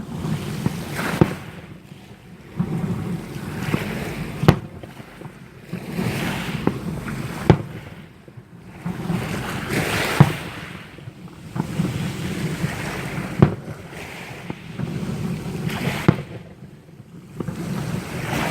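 Fireworks exploding: a sharp bang about every three seconds, with a rushing, rumbling noise swelling between the bangs.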